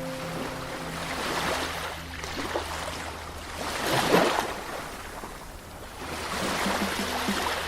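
Caribbean Sea waves washing ashore in surges. One wave breaks loudest about four seconds in, and another swell rises near the end.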